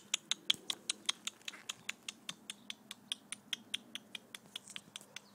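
A person's rapid, even clicking, about six sharp clicks a second, used as a call to bring pet tortoises to their food.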